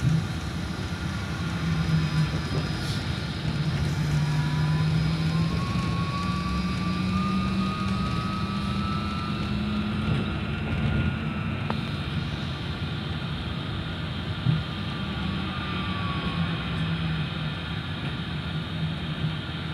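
Solaris Trolino 12 trolleybus heard from the passenger cabin: the electric traction motor's whine climbs steadily in pitch as the bus accelerates, over a low hum and road noise. Later the whine falls as the bus eases off, with one brief knock.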